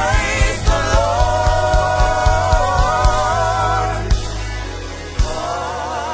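Live gospel worship music: a voice holds long, wavering notes over steady low sustained tones and a regular drum beat, about two hits a second. The beat drops out about four seconds in, with one more hit near the end, and the singing goes on.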